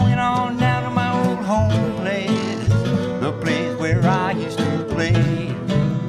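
Acoustic jug-band blues instrumental break: guitar playing a steady rhythm under a lead melody line that bends and wavers in pitch.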